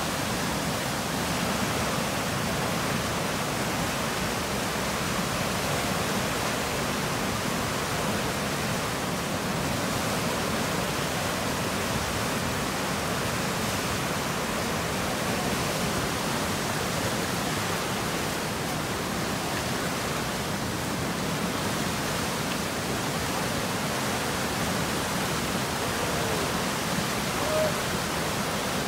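Whitewater of a surfable river standing wave, the Eisbach wave, a steady unbroken rush of fast water churning below a bridge.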